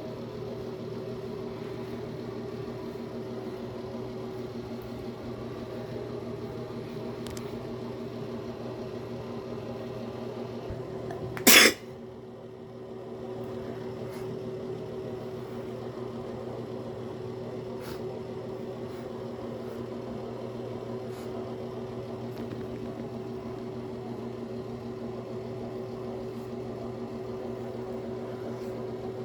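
A steady machine hum with several held tones throughout. About a third of the way in, a person gives one short, loud burst of breath through a congested nose and throat.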